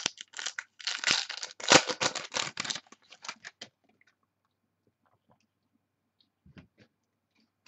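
A foil trading-card pack torn open and crinkled in the hands for about three and a half seconds. Near quiet follows, with a few faint ticks as the cards are handled.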